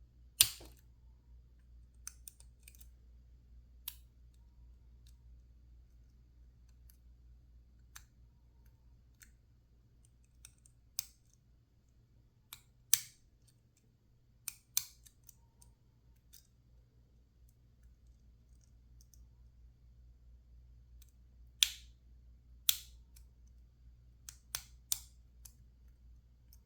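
Irregular sharp clicks and taps of lockpicking tools working inside a PacLock 410 Pro padlock, as pins are set under light tension. About a dozen clicks come at uneven gaps, a few much louder than the rest.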